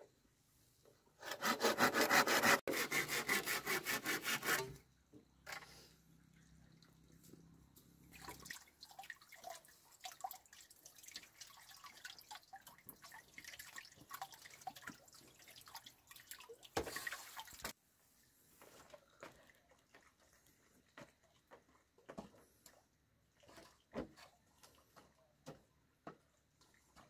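Hand saw cutting through a green bamboo pole in fast, even strokes, stopping after about three seconds. After that come lighter knocks and scrapes of bamboo poles being handled, with a sharper knock near the end.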